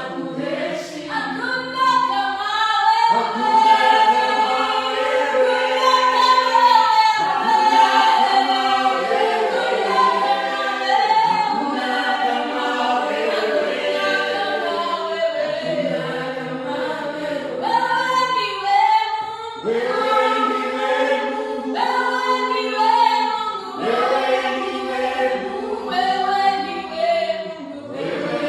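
Church choir singing a gospel praise song in harmony, several voices holding long notes, a cappella.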